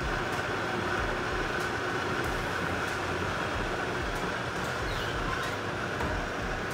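Countertop blender motor running at a steady speed, grinding soaked quinoa, oats and lentils with water into a smooth batter.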